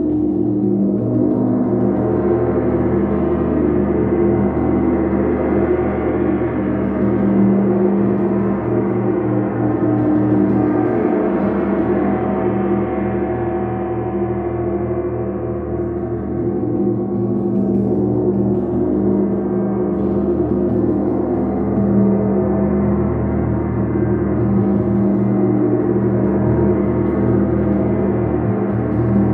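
Large hanging gong played continuously with a mallet, a sustained wash of many overlapping ringing tones that swells and ebbs slowly without a break.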